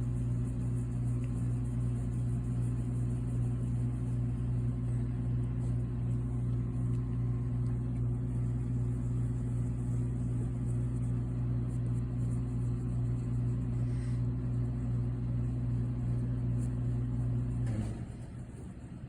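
Steady low electrical hum of a running motor or appliance, which cuts off abruptly near the end.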